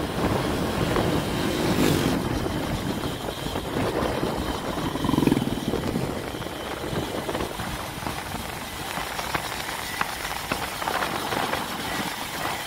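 Honda Activa scooter ridden at speed: steady wind rush on the microphone over the engine and tyre noise, with a motorcycle running close by.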